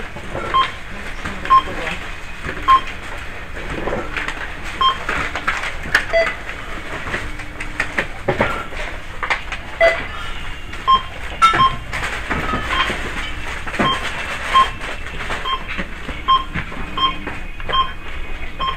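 Supermarket checkout barcode scanner beeping as the cashier scans items: short single beeps of the same pitch, irregularly spaced about a second apart, with the clatter of goods being handled on the counter.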